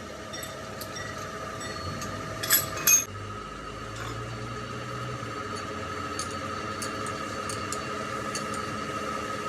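A workshop machine running with a steady whine, while metal clinks and clicks on and off; two sharp metallic knocks close together, about two and a half seconds in, are the loudest.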